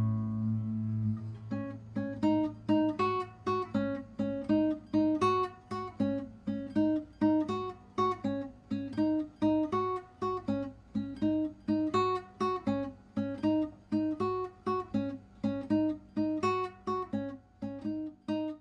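Background music: an acoustic guitar picking a steady, repeating pattern of plucked notes over a low held note that fades in the first second or two. The music stops at the end.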